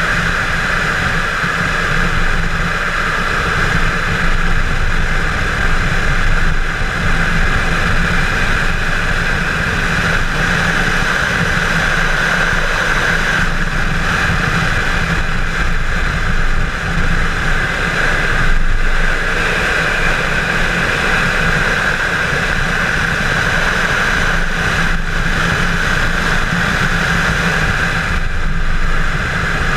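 Chevrolet Camaro 1LE running hard on a road course: a loud, steady blend of engine noise and rushing air at speed, with a few short dips in the second half where the engine note drops for a moment.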